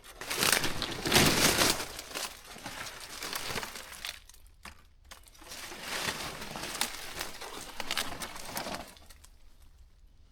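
Close crinkling and crunching rustle of dry material. It is heaviest in the first two seconds and comes again from about five and a half to nine seconds in, then dies away.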